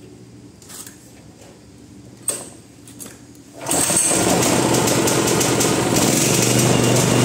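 Molar 3500 gasoline generator starting: a few faint knocks, then about three and a half seconds in the engine catches suddenly and runs steadily.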